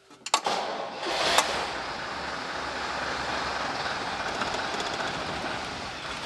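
Diesel engine of an AEC Routemaster bus: a couple of clicks, then it starts about a second in and runs steadily. It is being run to build up hydraulic pressure in the bus's braking system.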